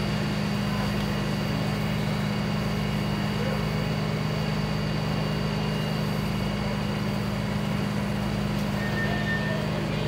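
Steady drone of fire-service machinery: an engine running at constant speed, low and even, without change.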